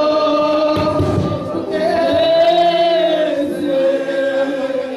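A congregation singing a slow worship song together without words the recogniser could catch, holding long notes. A low thump comes about a second in.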